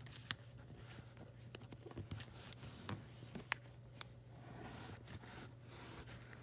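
Origami paper being folded and creased by hand on a desk: scattered light taps and soft paper rustles at irregular moments, over a faint steady hum.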